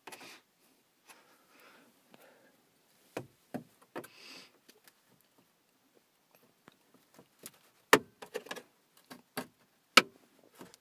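Scattered light clicks and taps of a knife blade and fingers against a car's plastic dashboard trim as the spring-clipped radio faceplate is pried at, with two sharper clicks late on, about two seconds apart.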